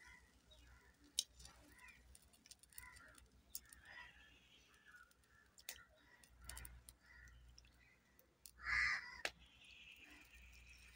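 A crow cawing once, loud and short, a little before the end, over faint bird calls and scattered small clicks.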